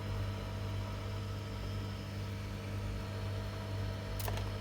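Steady low electrical machine hum, with one short click about four seconds in.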